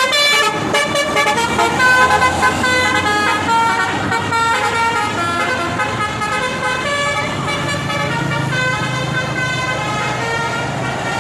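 A tour bus's basuri telolet horn playing a melody of held notes that step up and down in pitch. A bus engine rumbles underneath, growing stronger from about seven seconds in.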